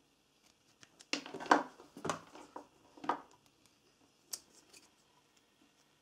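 Plastic multimeter test leads and probes being handled and fitted together: a run of sharp clicks and rattles from about one to three seconds in, then a single sharp click a little past four seconds.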